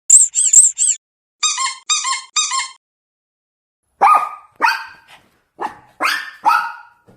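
Rubber duck squeak toy squeaked in quick runs: four short high squeaks, then three lower ones. About four seconds in come about five rougher, harsher squawks.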